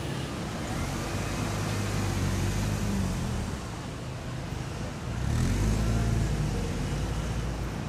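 Street traffic: the engines of motor vehicles running in the street, swelling twice as vehicles pass, the louder pass a little over five seconds in.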